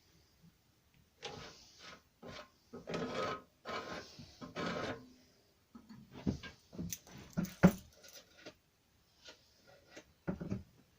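Metal filler being spread and scraped over holes in a lawnmower's steel deck: about five rough scraping strokes, then a run of sharp clicks and knocks, the loudest a bit past halfway, with two more near the end.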